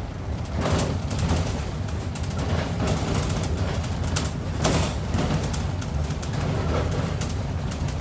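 Onboard sound of a Scania N230UD Optare Olympus double-decker bus: its five-cylinder diesel engine drones steadily while the bodywork and fittings rattle and click.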